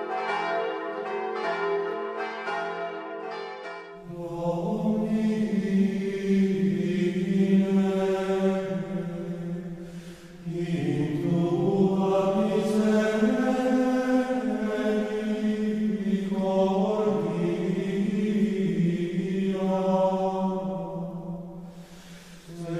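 Bells chiming for the first few seconds, then a choir chanting slowly in long held notes, with a short break about halfway through. The singing fades near the end.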